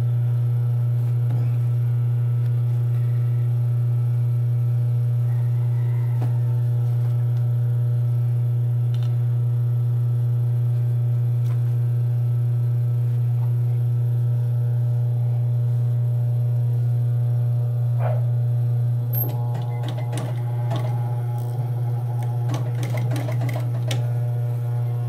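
Steady low electric hum of an industrial sewing machine's motor running idle. In the last several seconds it is joined by light clicks and rustles of fabric being handled at the machine.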